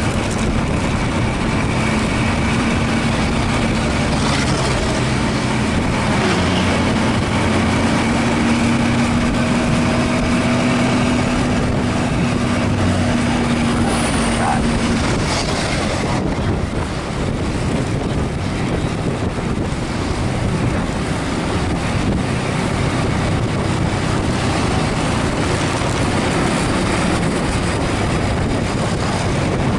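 Coach bus engine pulling hard up a steep climb, heard up close with wind buffeting the microphone. A steady engine tone rises slowly over several seconds and drops out about halfway through.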